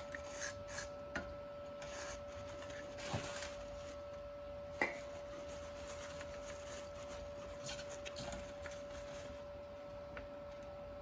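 Hand cleaning around the freshly refitted oil drain plug: rubbing and wiping, with scattered light clicks and knocks of handling, the sharpest about five seconds in. A faint steady hum runs underneath.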